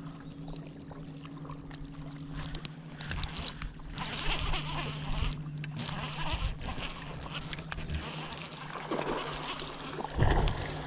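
Clothing and hands rustling and rubbing close to a chest-mounted microphone as an angler handles a baitcasting rod and reel, over a steady low hum. There is a thump about ten seconds in.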